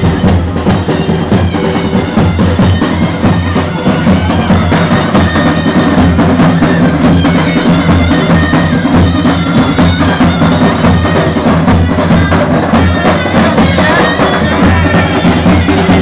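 Live Greek folk music: a reed wind instrument playing a melody over a steady drone, with drum beats.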